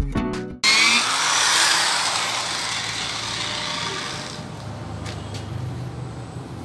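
Electric car polisher with a foam pad running against a painted door panel during the compounding stage. Its whir and the pad's rubbing start abruptly about half a second in, then gradually fade.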